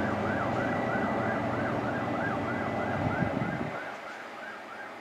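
First Great Western InterCity 125 (HST) diesel power car running as the train moves away, fading out quickly about three and a half seconds in. Under it, a high warbling tone rising and falling about twice a second carries on throughout.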